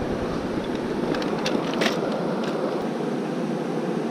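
Steady rush of a fast-flowing river, with a few light clicks a little over a second in, from fishing tackle being handled.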